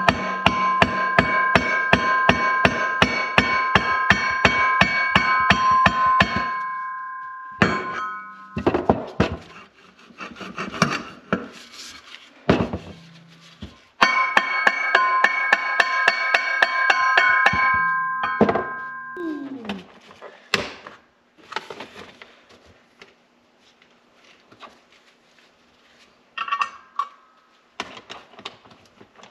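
Quick metallic clicking at about five clicks a second with a ringing tone, in two runs of several seconds, as tools work the snowmobile's secondary clutch apart. Single knocks and clatter of tools and clutch parts follow between and after the runs.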